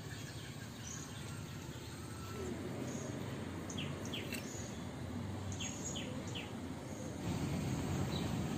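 Outdoor ambience: a steady low noise, with a few short, high bird chirps in two small groups around the middle.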